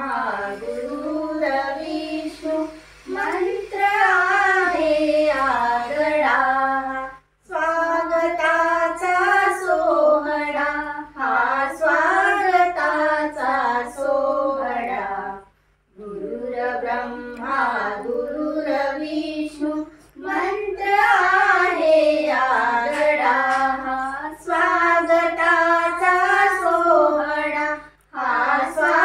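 A girl and a woman singing a Marathi song together, the melody rising and falling in long phrases, with brief breaks about seven and fifteen seconds in and again near the end.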